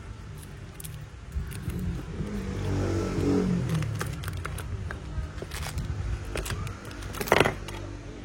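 A motor vehicle passing, its engine swelling and fading about halfway through, with scattered small clicks and one sharp knock near the end.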